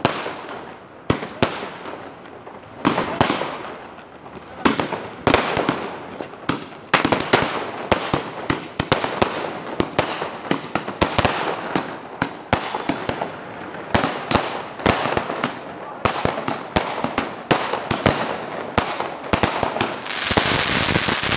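Fireworks and firecrackers going off in quick, uneven succession: many sharp bangs and crackles over the steady hiss of ground fountains, with a denser, louder rush of crackling near the end as an aerial shell bursts.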